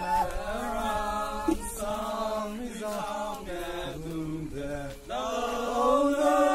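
Voices singing a chant-like tune in long held notes, phrase after phrase, swelling louder near the end.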